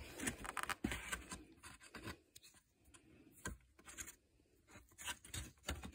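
Hands working at a ribbed black plastic panel: scattered light scrapes, rubs and small clicks, with a few sharper taps, as a part is worked into place in the panel.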